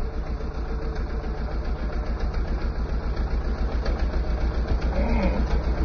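A 40-year-old Yanmar tractor's diesel engine running steadily as the tractor drives along, with a low, rapid chugging that grows a little louder toward the end.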